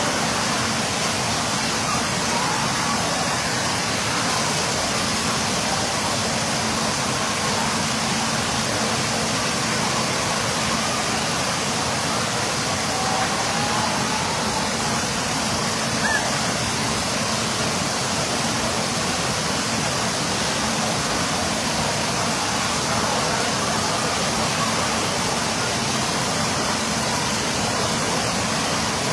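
Steady rush of water falling from an overhead rain-curtain shower fixture and splashing into a pool.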